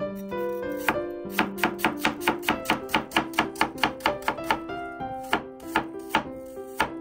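Knife chopping on a cutting board in a quick, even run of about five strokes a second. The strokes slow to a few spaced chops near the end.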